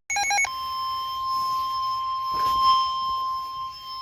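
NOAA Weather Radio alert signal heard through a weather radio's speaker: a brief burst of warbling SAME data tones, then the steady 1050 Hz warning alarm tone held without a break. It announces that a new warning, here a severe thunderstorm warning, is about to be read.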